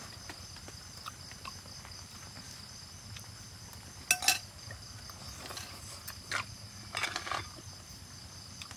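Metal spoons clinking and scraping against ceramic bowls and a cooked cow's leg bone while marrow is scooped out, with two sharp clinks about four seconds in and more clatter a few seconds later. A steady insect chorus hums behind.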